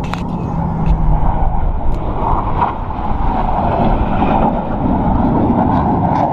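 Blue Angels jet aircraft flying past, their engine noise a steady, rushing rumble that grows louder from about two seconds in.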